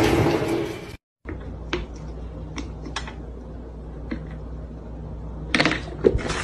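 A few light clicks and taps from a candy roll and a plastic soda bottle being handled at a table, over a low room hum. A loud noise cuts off about a second in, and a loud rush of sound starts near the end.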